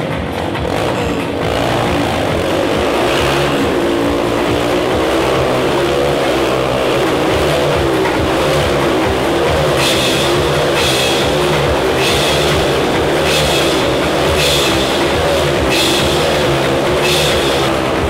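Motorcycle engines revving up and down as the bikes circle inside the steel Globe of Death, over loud rock music.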